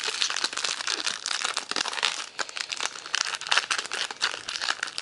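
Foil wrapper of a baseball trading-card pack crinkling continuously as it is opened and handled by hand.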